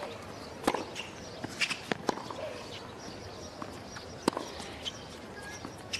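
Tennis rally on a hard court: a ball struck back and forth by racquets, with sharp hits every second or two and lighter ticks of the ball bouncing between them, over a faint crowd hush.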